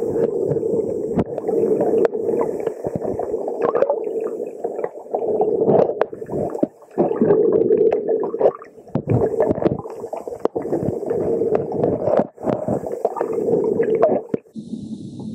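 Muffled underwater sound from a camera held below the surface: water sloshing and gurgling against it, with irregular knocks. Near the end it changes to a steadier low hum.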